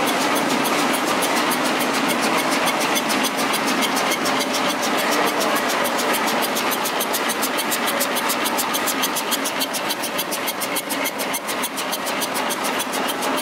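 Vintage stationary engine running steadily with a quick, even clatter.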